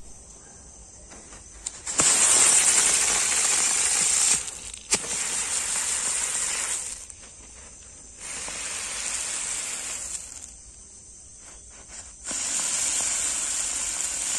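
Triangle-shaped ground chakri fireworks hissing as they spin and spray sparks, in four spells of two to three seconds each with quieter gaps between. A single sharp click about five seconds in.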